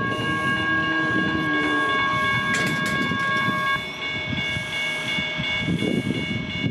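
Comeng electric suburban train passing close by: rumbling running noise with several steady high-pitched tones over it, two of which drop out about halfway through.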